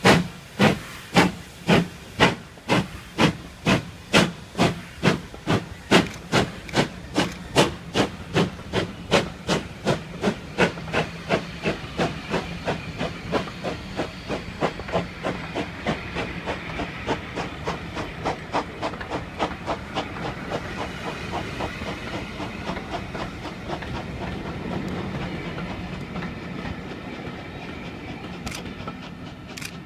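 Two GWR steam locomotives, large prairie tank No. 4160 and Modified Hall No. 6960 Raveningham Hall, double-heading a train away from a standstill: sharp exhaust beats, under two a second at first, quicken and fade as the engines draw away. They give way to the steady rumble of the coaches rolling past, with a few wheel clicks near the end.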